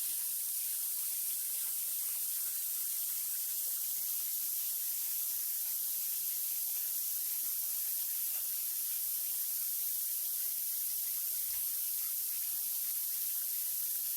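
Steady rushing hiss of a waterfall, high and even without change, cutting in abruptly just before.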